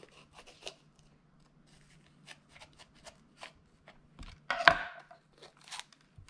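Kitchen knife cutting and scraping around the inside of a green bell pepper, a series of short, crisp cuts, with one louder knock of the knife on the wooden cutting board about four and a half seconds in.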